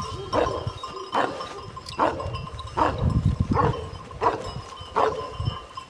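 A Kangal shepherd dog barking over and over at an even pace, a little more than once a second, with a bell ringing steadily underneath.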